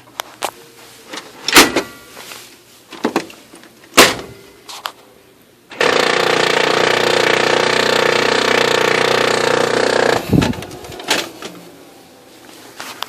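Oki MB480 printer grinding loudly for about four seconds in the middle, cutting off suddenly, with sharp clunks before and after. This new replacement unit grinds like this as it throws errors and jams.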